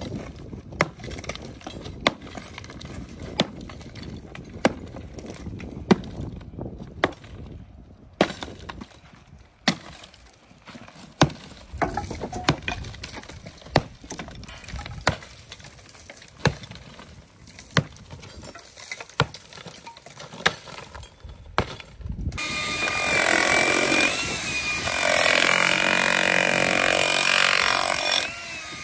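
A hand sledgehammer striking and breaking concrete blocks, one blow about every 1.3 seconds. About 22 seconds in, a corded electric demolition hammer starts and runs loud and steady until just before the end.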